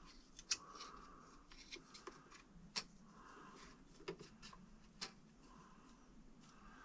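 A few sharp light clicks and taps from handling small 3D-printed plastic parts at close range. The loudest come about half a second in and just before the three-second mark.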